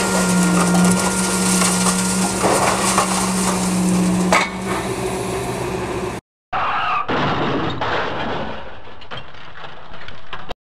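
Liebherr scrap-yard material handler working: a loud, steady engine and hydraulic hum under knocks and clanks of scrap metal as the grapple handles it. It cuts off abruptly about six seconds in.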